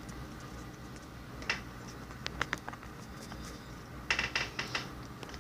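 Scattered light clicks and taps of small hard objects being handled, a few single ones early and a quick cluster of clicks about four seconds in.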